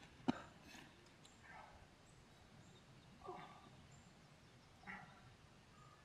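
A hurt man's short pained grunts and groans, three or four spaced a second or more apart, with a sharp knock just after the start.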